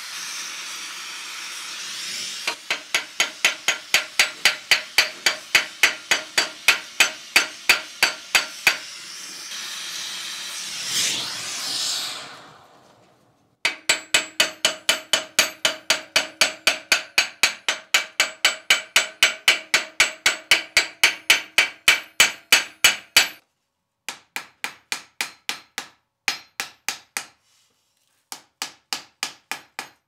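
Gas torch flame hissing as it heats steel, then runs of rapid hammer blows, about four a second, striking hot steel on the anvil and tooling with a metallic ring. The runs stop abruptly and start again several times.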